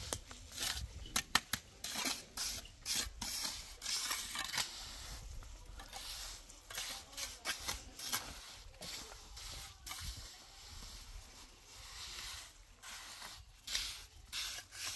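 Irregular clicks, taps and rustling, scattered with no steady rhythm and busiest in the first few seconds and again near the end, over a low background rumble.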